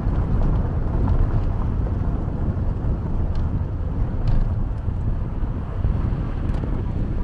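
Car driving along a gravel road, heard as a steady heavy rumble of wind buffeting the microphone together with tyre and road noise, with a few faint ticks.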